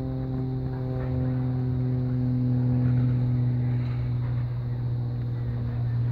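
Small engine running at a steady speed, a continuous drone that grows slightly louder; it comes from the portable engine-driven power unit for the hydraulic rescue tools.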